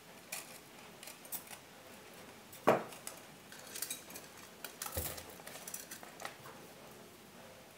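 Craft wire being handled, measured and cut with pliers: light metallic clinks and scrapes, with a sharp click near three seconds in and another near five.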